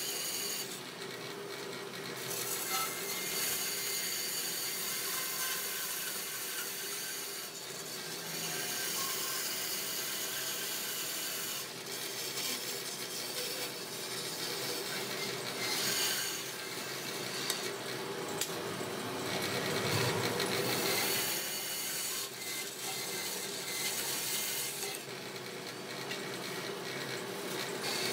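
Bandsaw running with its blade cutting through a thick block of solid wood; the cutting noise swells and eases as the block is fed through.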